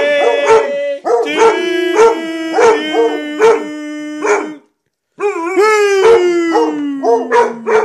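Two basset hounds howling together in long drawn-out howls, with quick short barks repeating under them. The sound breaks off for half a second about two-thirds through, then a long howl slides slowly down in pitch.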